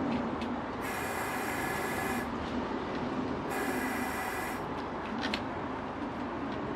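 Newly built single-burner propane forge running with a steady rushing noise. Twice, about a second in and again about three and a half seconds in, a high whistling hiss rises over it for a second or so.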